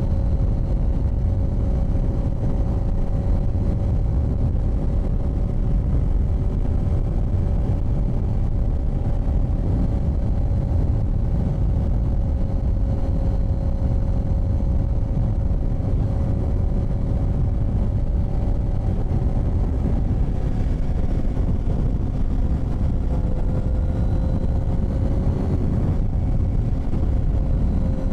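Honda CBR sportbike engine running at a steady cruising speed, its pitch holding level and dipping briefly near the end, under heavy wind rush on the microphone.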